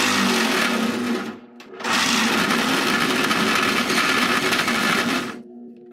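Drill press running in two bursts, about a second and then about three and a half seconds, a steady motor hum under a loud hissing grind.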